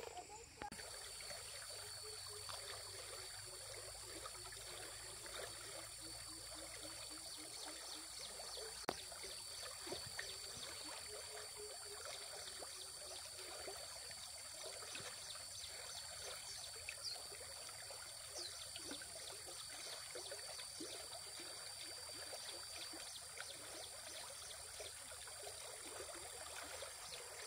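Stream water running and trickling, with a thin steady high tone over it.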